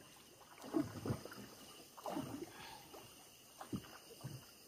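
Faint water drips and small splashes as a gill net is hauled up out of the water beside a wooden boat, heard as scattered soft sounds.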